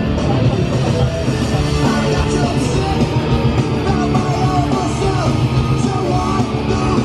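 Loud, hard-driving punk/heavy rock music with a yelled, shouted vocal over guitars.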